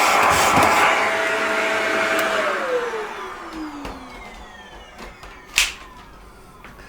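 Vacuum cleaner running, then switched off: its noise fades and its motor whine falls in pitch as it winds down. A single sharp click near the end.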